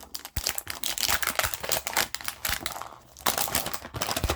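A small speedcube box and its packaging being opened and handled by hand: a dense run of crinkling, clicks and rustles, dipping briefly about three seconds in.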